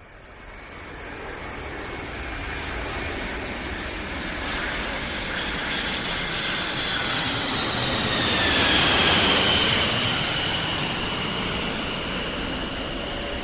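Passenger jet airliner passing low overhead. The engine roar grows from nothing, is loudest about nine seconds in, and its high whine drops in pitch as the plane goes by.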